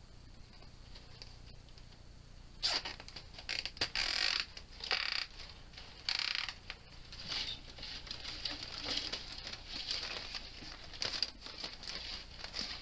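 Nylon zip ties ratcheting as they are pulled tight around a foam pool noodle and the wire rim of a collapsible mesh fish basket, with rustling and rattling of the mesh and foam as they are handled. The zipping comes in several short bursts, thickest a few seconds in.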